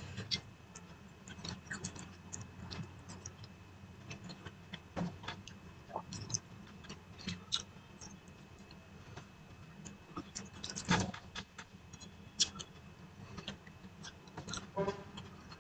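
Close eating sounds of a person eating rice and dal by hand: irregular small clicks and smacks of chewing and of fingers mixing food on a plate, the loudest about eleven seconds in, over a low steady hum.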